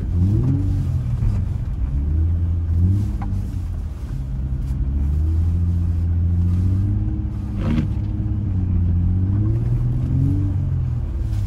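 Infiniti G35 coupe's V6 engine heard from inside the cabin, its pitch rising and falling as the throttle is worked through a slow drift on snow.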